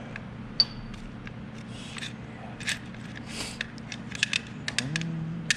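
Loose metal lathe parts being handled on a bench: a sharp clink about half a second in, some scraping, and a quick run of small clicks and knocks near the end.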